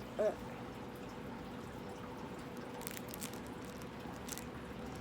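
A short closed-mouth "mm" just after the start, then faint wet mouth clicks of someone chewing a jelly bean, over a steady electrical hum.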